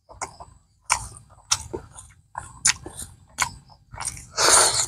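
Close-miked chewing of a mouthful of balut and fresh herb leaves: a series of short crisp crunches, one every half second to a second, then a longer, louder crunch near the end as more leaves go into the mouth.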